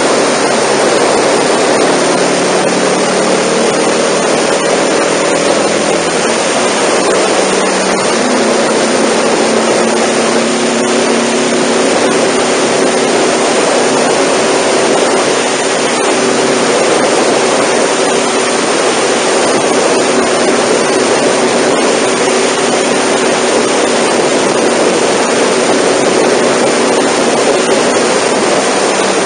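Wind rushing over the microphone of a Honda NC700 motorcycle at expressway speed, with the bike's 670 cc parallel-twin engine humming steadily underneath. The engine note shifts between about six and eight seconds in, then holds steady.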